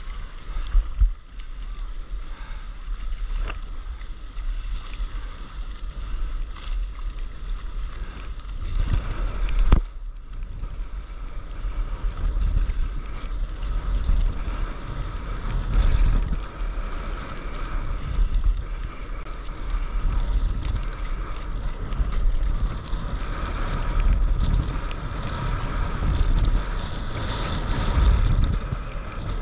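Wind buffeting an action camera's microphone at the sea surface, with sea water sloshing around a surfboard. A few sharp knocks or splashes stand out, the loudest about ten seconds in.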